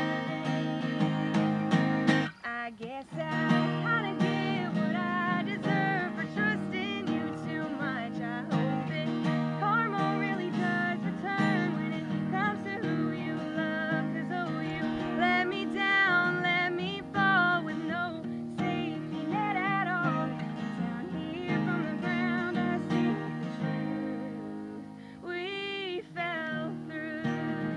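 Two acoustic guitars strummed together while a woman sings a slow song, with a brief break in the strumming about two seconds in.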